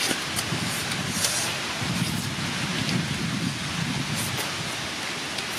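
Close-up eating sounds of grilled catfish being bitten and chewed by hand, with scattered short mouth clicks over a steady hiss.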